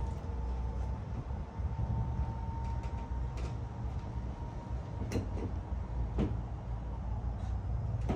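Motor of an Azenco R-Blade motorized louvered pergola running to turn the louvers, a steady whine that stops about seven seconds in, with a few clicks around five and six seconds.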